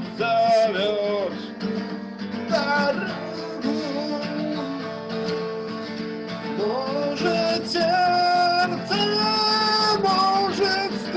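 Acoustic guitar strummed through an instrumental passage of a song, without singing.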